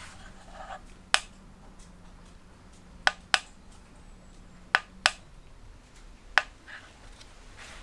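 Six sharp clicks, two of them in quick pairs, over a faint steady hum from a small scooter starter motor spinning at around 10,000 rpm. The hum dies away about five seconds in.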